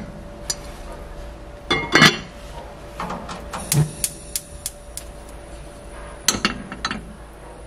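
Cookware clatter: a glass pot lid set onto a pot with a clink about two seconds in, a few light knocks and ticks, then more clatter of a frying pan on a gas stove grate a little after six seconds.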